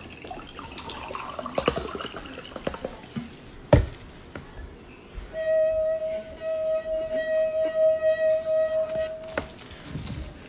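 Water pouring, then a single sharp knock. After that comes a steady pitched tone held for about four seconds, pulsing in loudness.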